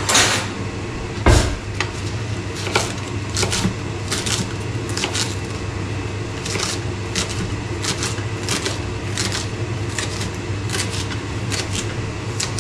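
Kitchen knife chopping soup vegetables on a cutting board: irregular sharp knocks, about one or two a second, with a heavier thump about a second in, over a steady low hum.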